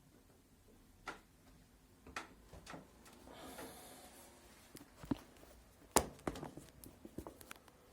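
A removed washing-machine shock absorber being handled: scattered light clicks and knocks of its hard plastic body, a brief rubbing about three seconds in, and a sharper knock about six seconds in, followed by a run of small clicks.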